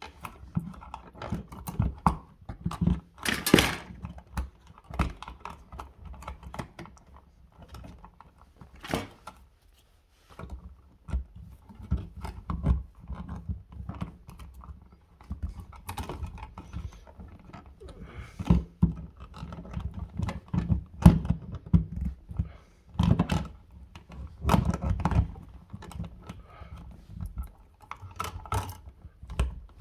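Bare copper ground wires being twisted together with pliers: irregular metal clicks, knocks and rattles of tool and wire handling, with a short pause about ten seconds in.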